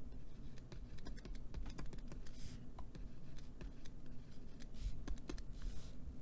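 Stylus tapping and scratching on a tablet while handwriting: a run of irregular light clicks with a couple of short scratchy strokes.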